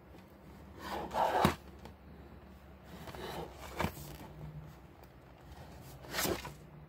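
Cardboard box being handled and turned in the hands: brief rubbing scrapes with light clicks, the loudest about a second in, another near four seconds and one after six seconds.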